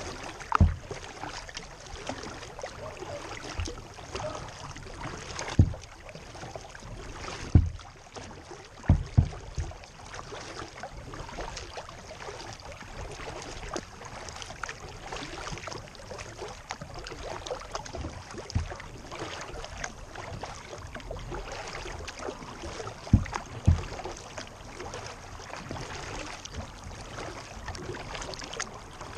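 Water splashing and lapping around a plastic kayak moving across a rippled lake, with a few sudden low thumps against the hull, loudest a couple of times in quick succession.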